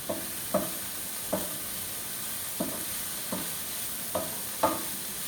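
Vegetables for pancit sizzling as they are stir-fried in a pan, with a spatula knocking against the pan about seven times at uneven intervals.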